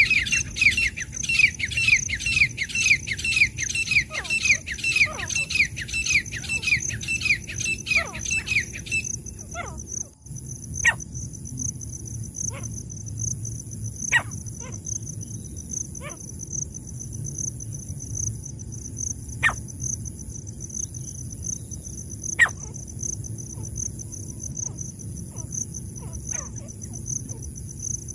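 Francolin (teetar) calling: a fast run of loud, sharp repeated notes, about three a second, that stops about nine seconds in, followed by a few scattered single sharp notes. A steady high insect trill from crickets runs underneath.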